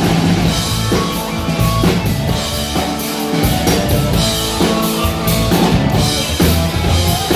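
Live rock band playing, with drum kit (bass drum and snare) over bass and keyboard chords.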